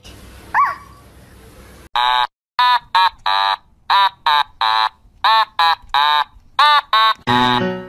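A small puppy yapping: a run of short, high-pitched barks, about two or three a second.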